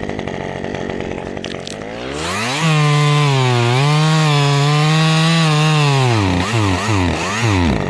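Chainsaw engine running low for about two seconds, then revved up to high speed and held there, wavering slightly. Near the end it gives several quick throttle blips up and down.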